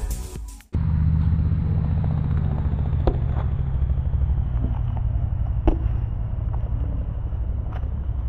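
Wind buffeting the microphone as a steady low rumble, with a few sharp knocks of a basketball bouncing on a concrete court, the loudest about three and six seconds in. Intro music fades out in the first second.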